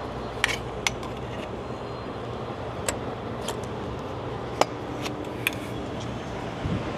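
A few sharp, separate metallic clinks and taps as clamps and hand tools are handled while intercooler boots are fitted, over a steady low background hum.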